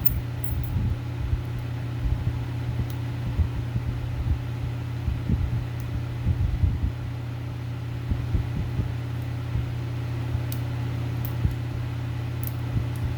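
Electric fans running with a steady low hum, over which come irregular soft handling knocks and a few sharp metallic clicks from the padlock and picks being handled.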